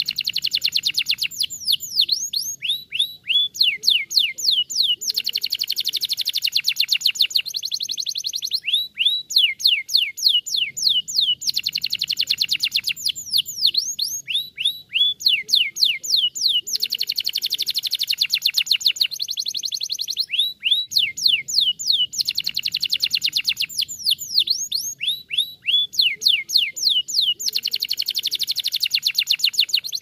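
Domestic canary singing: runs of separate notes sweeping down in pitch, several a second, alternating every few seconds with long, very fast trills.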